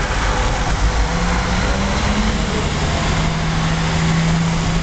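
Road traffic: cars and a coach moving slowly along the road, an even noisy wash, with a steady low engine hum that comes in about a second and a half in and holds on.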